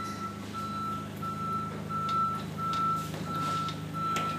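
A vehicle's reversing alarm beeping steadily, about three beeps every two seconds, over a low steady hum, with a couple of faint clicks near the end.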